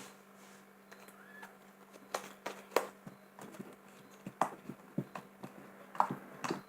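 Scattered light clicks and taps, irregular and a few a second at most, as a spoon and a plastic glue container are handled while the last of the white glue is scraped out.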